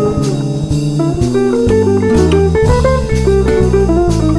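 Background music: a plucked guitar melody over a bass line and drums keeping a steady beat.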